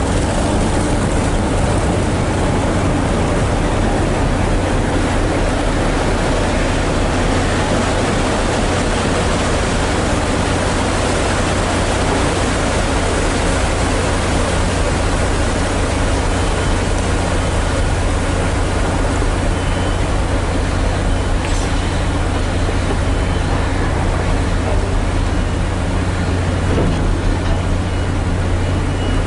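A ferry's engine running steadily with a low, even hum, under a constant rush of water and wind.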